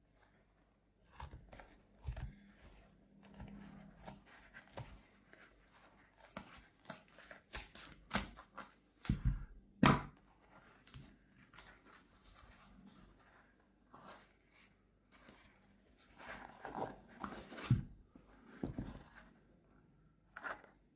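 A knit running shoe and its laces being handled: rustling with scattered clicks and knocks, the loudest a sharp knock about ten seconds in.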